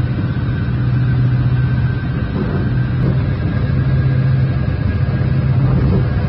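Steady low engine and road drone inside a car's cabin, with a faint high whine above it.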